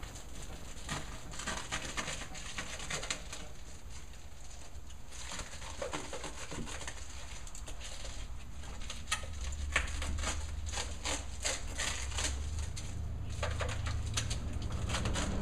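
Crinkling and rustling of foil-faced bubble-wrap insulation being handled and fitted around a water heater tank, made of many short irregular crackles, with a low hum growing louder in the second half.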